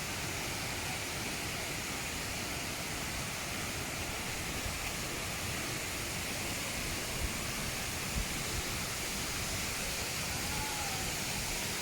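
Steady rushing of a waterfall, an even roar of falling water, with two or three brief low thumps about seven and eight seconds in.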